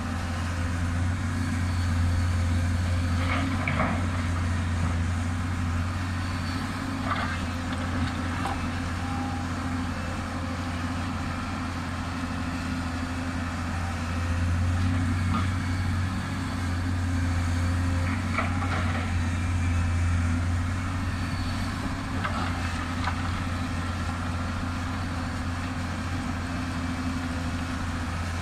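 Hyundai HX210S excavator's diesel engine running steadily, its level swelling and easing several times as the machine digs and swings. Loose rock gives occasional sudden knocks and clatters, about half a dozen across the stretch.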